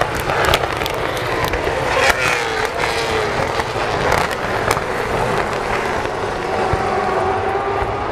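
V8 Supercar race cars' V8 engines running hard past the listener, their pitch falling as they go by, with another engine note rising slowly near the end. A heavy low rumble and frequent sharp clicks run underneath.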